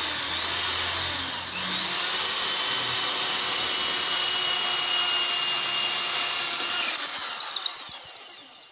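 Doliz BA670 550 W impact drill with an 8 mm wood bit drilling into a wooden board: the motor whines up to speed, drops briefly in pitch under load about a second and a half in, runs steady, then turns uneven near the end and stops.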